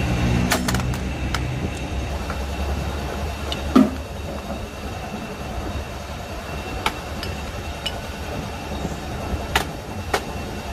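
Scattered sharp clicks and a clank of a wrench working on the fitting of a new aluminium car AC filter drier, the loudest knock about four seconds in, over a steady low rumble.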